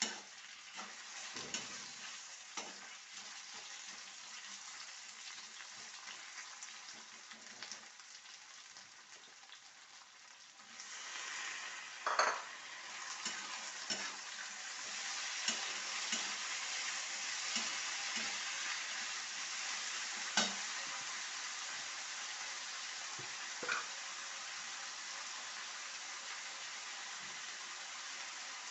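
Food frying in hot oil in a pan, a steady sizzle that grows louder about a third of the way through, with a spoon stirring and now and then striking the pan.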